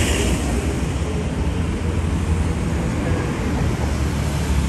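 Steady city street noise: a deep, unbroken rumble under an even hiss, with no single event standing out.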